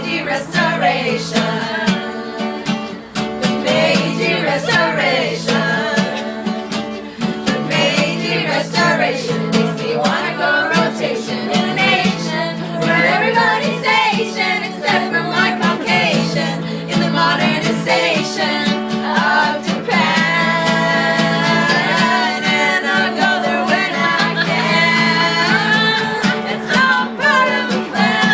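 A song: singing over an instrumental accompaniment with held low notes and a regular beat.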